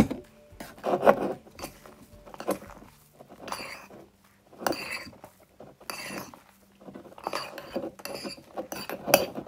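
Metal spoon scraping and clinking against a porcelain bowl in irregular strokes, stirring a thick fluffy slime of shaving cream and glue. The mixture is just starting to come away from the sides of the bowl.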